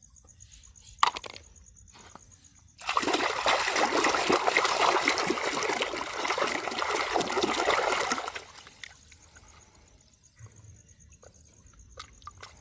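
Water running and splashing for about five seconds, starting about three seconds in and fading out past the middle, with a few small knocks in the quieter stretches before and after.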